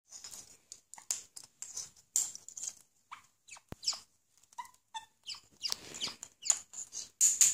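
A caique giving short, high squeaky chirps, some sliding down in pitch, along with quick rustling and crinkling of a plastic wrapper that it is biting and tugging.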